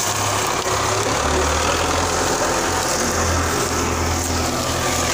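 Belarus MTZ-510 tractor's diesel engine running steadily with a low drone, its pitch settling lower about a second in.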